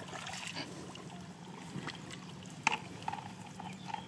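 Water dripping and trickling as a wet fishing net is handled and fish are picked out of it into a bucket, with small scattered clicks and one sharp tap a little past halfway.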